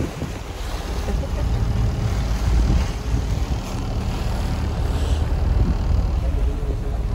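Steady low rumble of a boat's engine mixed with wind buffeting the microphone.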